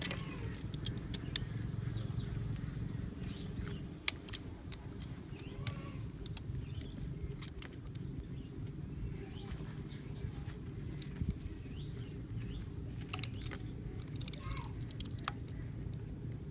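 Utility knife blade carving a notch in PVC plastic pipe: irregular small clicks and scrapes as the blade cuts. A steady low rumble runs underneath, with faint bird chirps.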